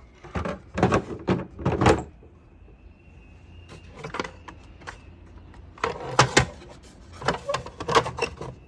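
Knocks, clatter and scraping of the DeWalt electric lawnmower's plastic housing and parts being handled as it is dismantled, in several short bursts.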